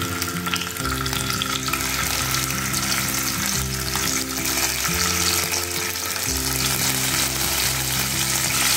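Small bata fish sizzling as they are laid one by one into smoking-hot oil in a kadhai and start to fry, a steady crackling hiss. Soft background music with sustained low notes plays underneath.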